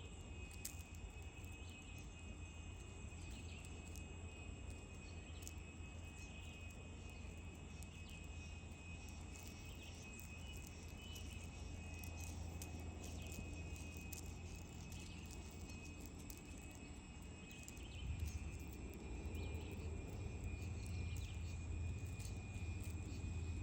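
Ant sound effect: a steady low rumble with a thin, constant high tone and scattered faint ticks, growing louder about three-quarters of the way through.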